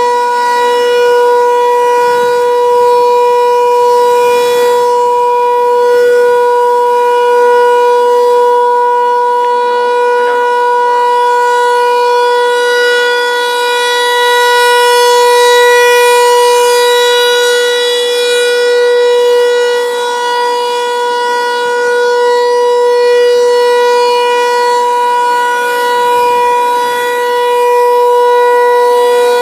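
Federal Signal 508 outdoor tornado warning siren sounding a test. It holds one steady pitch and swells and eases gently in loudness.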